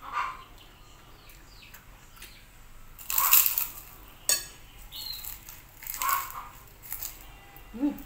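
Close-up eating sounds: loud crunching as bites are taken from a puffy white krupuk cracker and chewed, strongest about three seconds in and again around six seconds, with a sharp click about four seconds in.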